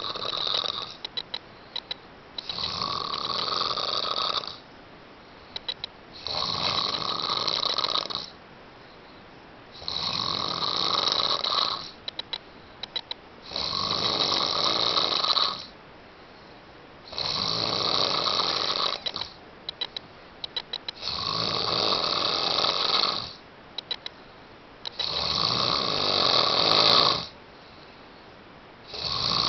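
Loud, regular snoring: about eight long, high-pitched snores, each about two seconds long and coming every four seconds or so, with a quick rattling flutter between them. The snore is odd enough that whether it is a real snore is in doubt.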